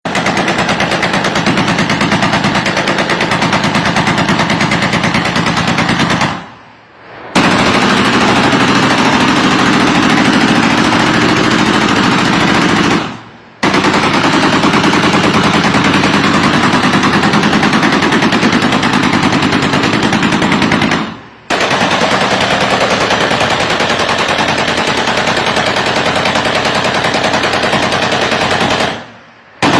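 Sustained automatic machine-gun fire in long bursts of about six to eight seconds each, with a brief pause between bursts roughly every seven seconds.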